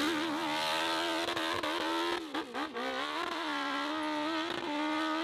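Off-road motorcycle engine revving hard at high rpm as it climbs a steep dirt hill, the pitch wavering as the rear wheel digs for grip. About two seconds in the revs drop and falter briefly, then pick back up and hold high.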